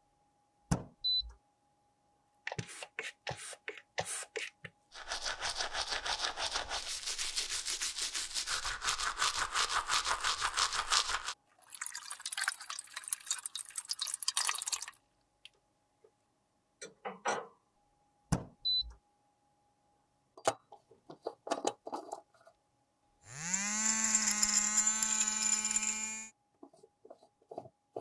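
Small electric grinder motor spinning up with a rising whine, running steadily for about three seconds as it grinds broken pressed powder in a glass jar, then stopping. Before it come a long stretch of water pouring over a makeup compact, and scattered light clicks and taps.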